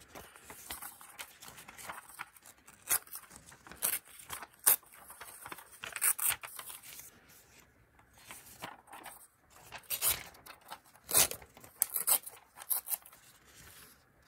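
Sheets of design paper being handled and torn by hand: irregular crisp rustles and tearing sounds, with louder strokes every second or two, dying down near the end.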